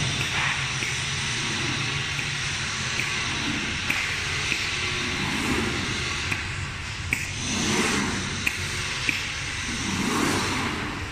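CNC glass cutting machine running: a steady low hum under motor whines that rise and fall in pitch every couple of seconds, with scattered sharp clicks.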